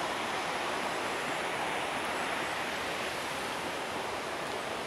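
Steady rushing of water, like a mountain stream running below the forest slope: an even, unbroken hiss and roar with no rhythm.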